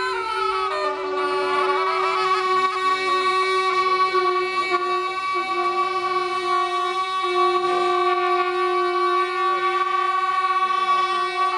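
Tibetan gyaling, double-reed shawms, playing long held notes together in a reedy drone; the notes slide down about a second in and then hold steady.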